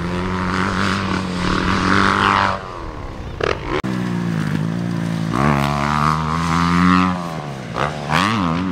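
Dirt bike engines on a motocross track running at high revs, the pitch rising and dropping again and again with throttle and gear changes. The sound changes abruptly about four seconds in.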